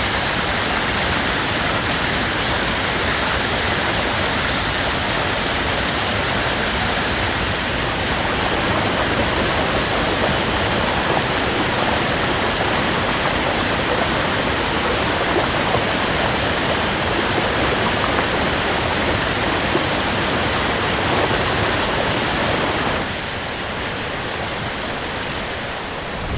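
Water rushing and splashing over rocks in a small cascade, a steady full rush of noise that drops a little in level and body near the end.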